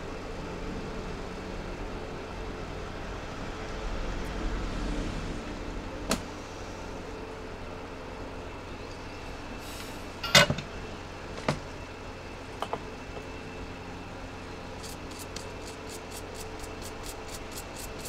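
Steady background hum and noise at a repair bench, broken by a few sharp clicks and knocks of tools being handled, the loudest about ten seconds in. Near the end comes a quick, even run of faint ticks, about five a second.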